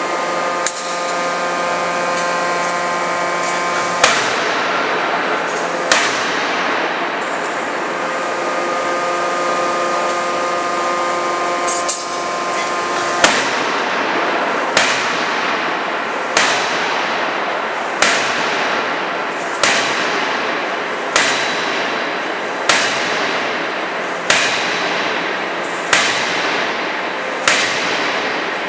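200 kJ CNC die-forging hammer striking: two single blows, then, from about halfway through, a steady run of blows about every one and a half seconds, each a sharp bang with a short ringing decay. A steady hum of several tones sounds before the run of blows and stops as the run begins, over constant machinery noise.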